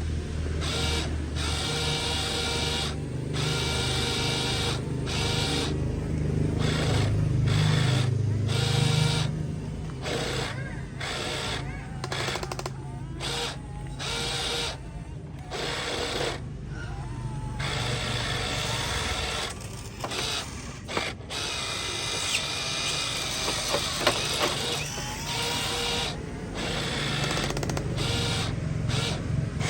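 Small electric motors of a radio-controlled model excavator whirring in short runs that stop and restart every second or two, over a steady low hum.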